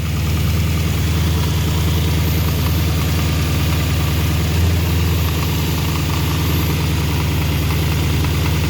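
Porsche Panamera S engine idling, with the intermittent knocking rattle from under the hood that the owner is trying to capture setting in.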